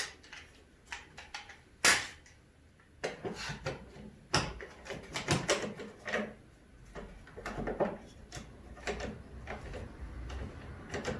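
Clamps being fitted and tightened against a wooden block under a tabletop: scattered clicks, knocks and rattles of metal and wood, the sharpest about two seconds in.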